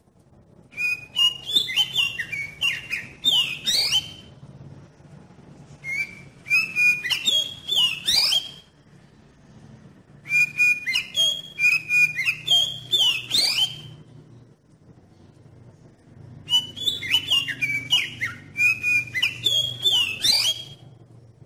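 Oriental magpie-robin (kacer) in full song: four bursts of loud whistled phrases, each a few seconds long, with rising and falling whistles mixed with sharp clicking notes, separated by short pauses.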